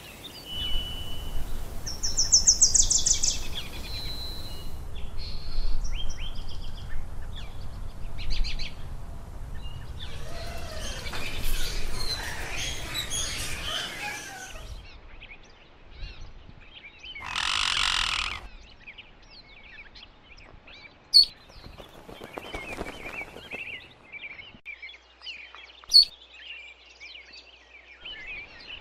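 Birds chirping and calling, with several stretches of rustling noise and two short sharp clicks later on.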